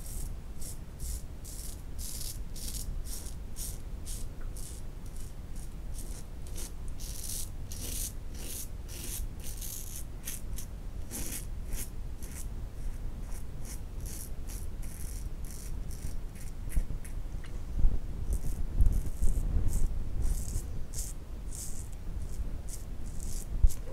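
A Yunost safety razor scraping through lathered stubble in quick short strokes, a crisp rasp with each stroke, several a second. A few dull bumps come in the last few seconds.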